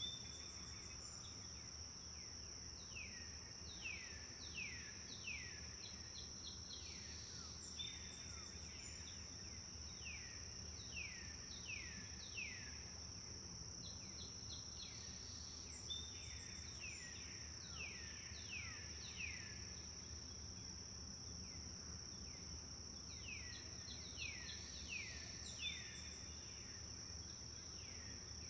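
A songbird repeating bouts of quick downward-sweeping whistled notes every few seconds, over a steady high insect drone.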